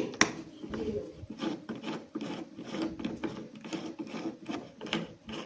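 Rubbing and scraping at a refrigerator door, in quick irregular strokes.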